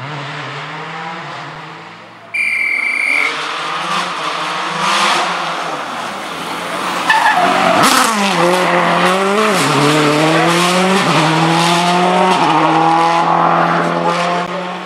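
Rally car engines revving hard at full throttle, the pitch rising and falling with the gear changes. The loudest moment comes about eight seconds in, as a Subaru Impreza rally car with a turbocharged flat-four goes past, then climbs through several upshifts as it pulls away. A short shrill tone sounds about two and a half seconds in.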